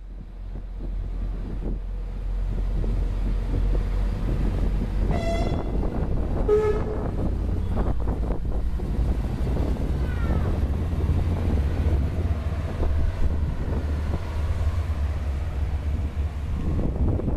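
Eurobahn Alstom Coradia LINT 41 diesel multiple unit pulling away, its diesel engine running with a steady low rumble. About five seconds in its horn gives two short toots on two different notes, the second lower.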